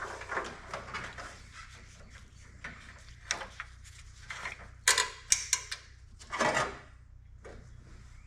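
Hands routing a new hood release cable: scattered clicks, taps and rattles of the cable and its fittings. There is a quick run of sharper clicks about five seconds in, then a short scrape.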